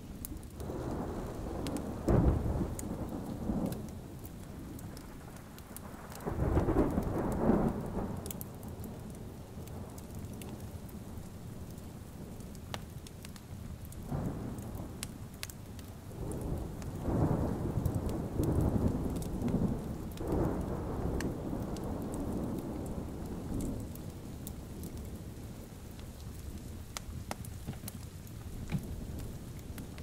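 Steady rain falling, with several low rolls of thunder; the loudest is about seven seconds in, and a longer roll comes from about seventeen to twenty-one seconds in.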